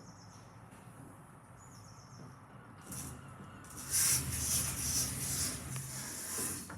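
Passenger lift doors closing and the car setting off. Two faint high beeps come first; about four seconds in, a loud rushing hiss over a low hum starts and runs for about three seconds.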